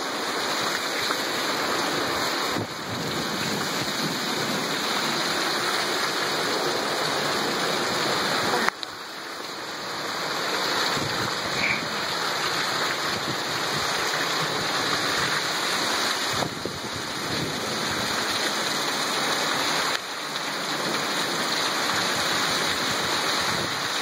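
Torrential rain pouring down, a dense steady hiss of heavy rain on the ground and surfaces.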